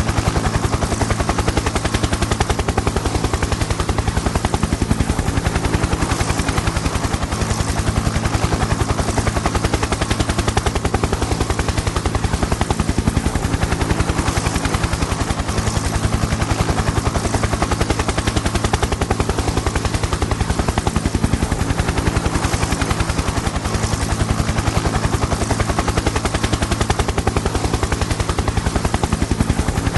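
Helicopter flying steadily, its rotor blades chopping in a fast, even pulse over a steady low engine hum.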